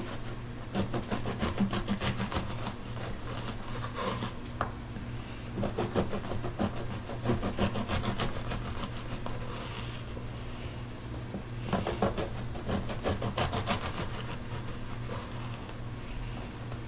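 Bread knife sawing slices off a crusty loaf on a wooden cutting board: several bouts of quick rasping strokes as the blade cuts through the crust and touches the board.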